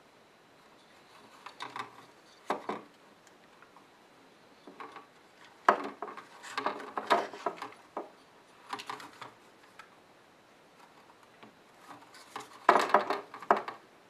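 Handling noise from a thermo-electric dehumidifier's fan and heatsink assembly being turned over and pushed against its plastic housing. It comes in several short bursts of clicks, knocks and rattling scrapes.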